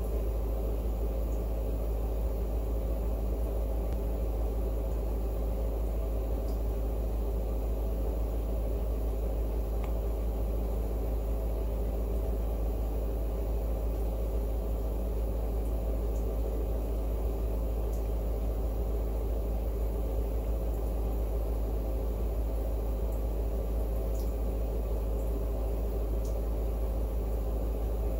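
Steady low rumble and hum of background noise, unchanging throughout.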